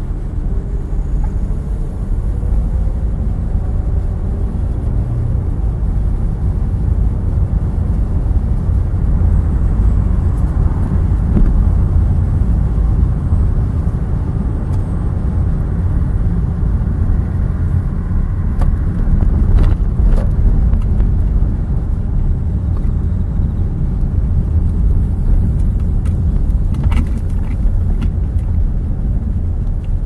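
Steady low rumble of a car driving at low speed, engine and tyre noise picked up by an onboard camera, with a few faint light clicks in the second half.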